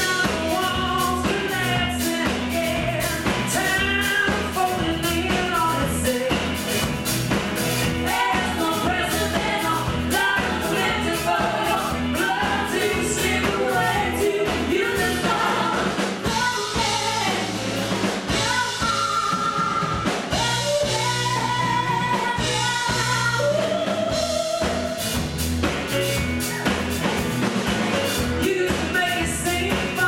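Live band performing a song: male and female singing over strummed acoustic guitar, banjo, electric guitar and drum kit, with a steady beat.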